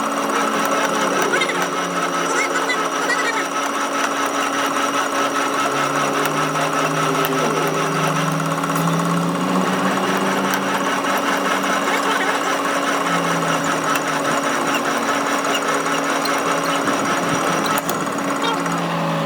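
Workshop power tool running without a break, with a fast, even rattle and a steady whine.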